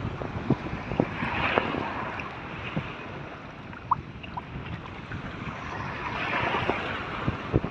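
Sea waves washing in, two swells of hiss a few seconds apart, with wind buffeting the microphone in short thuds and clicks.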